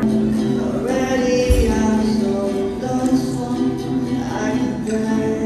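Acoustic guitar ensemble playing a song, with a man singing along.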